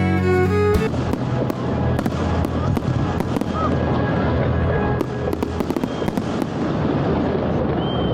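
Fireworks display: dense, continuous crackling with many sharp pops. Violin music plays for the first second before it cuts off.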